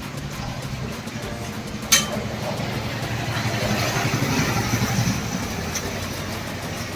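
A motor running with a low, fast pulsing hum that grows louder in the middle, and one sharp click about two seconds in.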